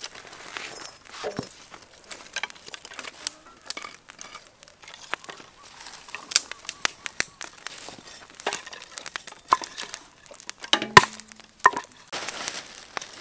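Plastic bag crinkling and rustling as it is handled, with many irregular sharp crackles and one louder knock near the end.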